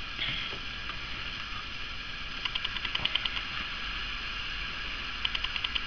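Two short runs of rapid ratchet-like clicking, about ten clicks a second, each lasting under a second.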